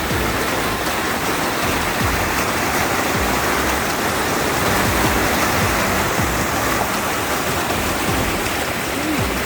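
Floodwater rushing steadily down a swollen creek, a constant loud wash of water noise.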